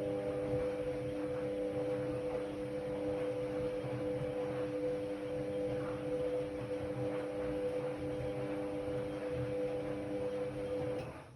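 Ariston Margherita 2000 AL 108 D washer-dryer running with a steady electrical hum over a low rumble, stopping abruptly about eleven seconds in.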